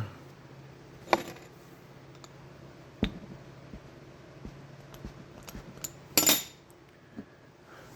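Small metal clicks and clinks as a hydraulic roller lifter is being taken apart by hand: a sharp click about a second in, another near three seconds, light ticks between, and a short clatter a little after six seconds.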